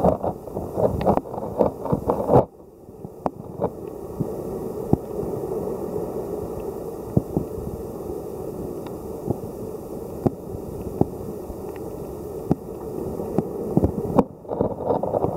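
Underwater ambience in a shallow tidepool, heard muffled through a submerged camera: a steady wash of moving water with scattered sharp clicks. It is louder and busier in the first two and a half seconds, then settles to a quieter, even wash.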